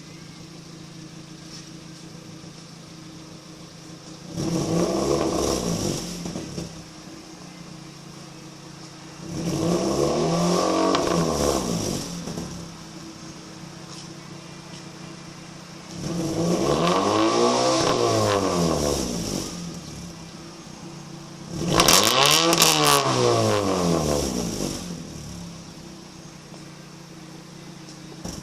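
A 2008 Hyundai Tiburon GS's 2.0-litre four-cylinder engine, straight-piped through 2.5-inch pipe with no muffler, idling and revved four times. Each rev climbs and falls back to idle over two to three seconds, and the last one starts with a brief raspy burst.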